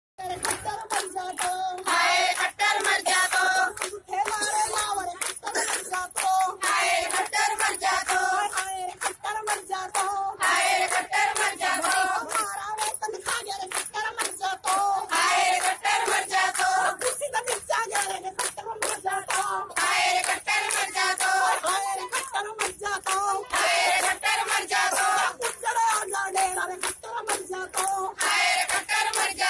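Women singing into a corded microphone, with hand-clapping throughout.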